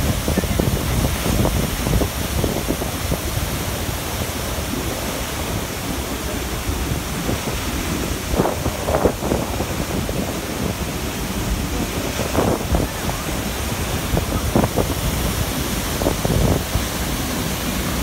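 Steady roar of a large waterfall, Athirappilly Falls, its water plunging onto the rocks below in a dense, even rush with a deep rumble. Wind buffets the microphone, and a few brief louder swells come about halfway through and near the end.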